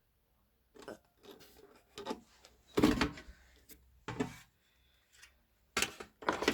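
Subwoofer cabinet being handled and worked on during disassembly: a run of irregular knocks, clunks and scrapes starting about a second in, the loudest near the middle.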